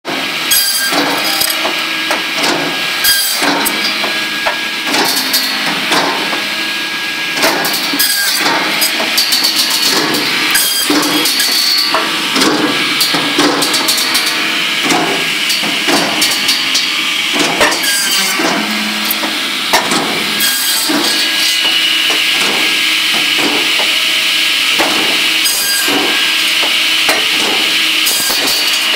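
GROWI firewood saw, a circular saw with a conveyor, running and cutting logs into firewood, with frequent knocks of wood pieces clattering through the machine. About two-thirds of the way in the knocking thins out and a steadier high whine takes over.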